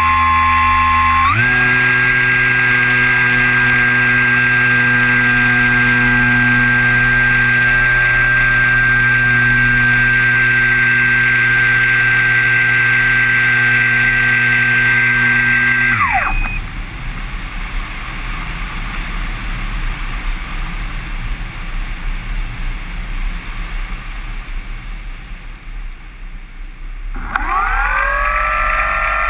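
Kyosho Stratus 2000 model plane's motor and propeller, heard from a camera on the fuselage: a steady whine that steps up in pitch just after the start, cuts off abruptly about halfway, leaving only a rush of wind while the plane glides, then starts again and rises in pitch near the end.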